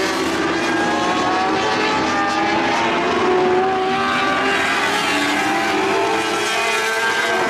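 Several winged Lightning sprint cars' engines running at high revs, several engine pitches overlapping and rising and falling as the cars lap.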